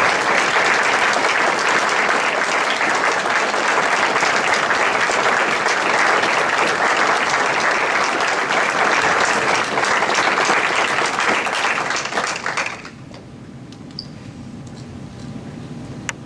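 Audience applauding, a dense steady clatter of hand claps that cuts off suddenly about three-quarters of the way through, leaving only a quiet low background.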